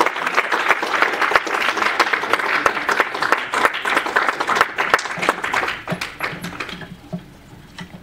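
Audience applauding, many hands clapping at once, the clapping thinning out and dying away about seven seconds in.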